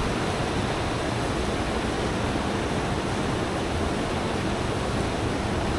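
Steady, even rush of wind and water noise on a RIB under way.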